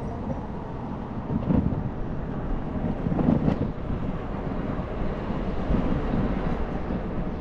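Wind rushing over the microphone with low road rumble from a moving electric scooter, swelling louder about one and a half and three and a half seconds in.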